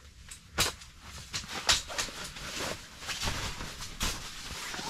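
Folding camp cot being unfolded: its fabric bed rustling while the metal frame legs clack and knock several times as they swing open.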